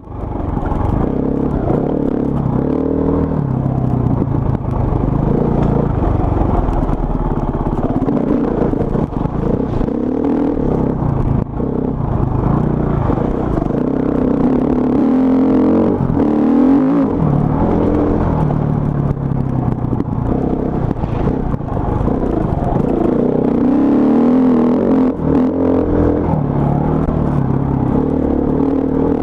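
Off-road enduro motorcycle engine heard from the bike itself, running hard with the revs rising and falling again and again as it is ridden along a rough dirt trail.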